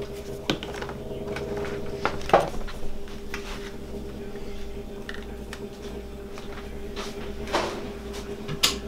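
Kitchen handling noise: a few scattered light knocks and clicks, the loudest about two and a half seconds in and another near the end, over a steady low hum.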